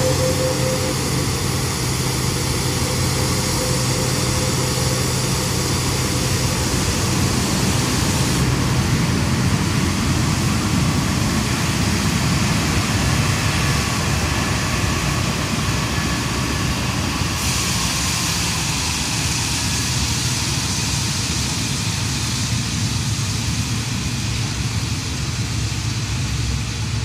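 Jet engines of an Airbus A330 freighter at taxi power as it rolls past, a steady rush of engine noise over a low hum.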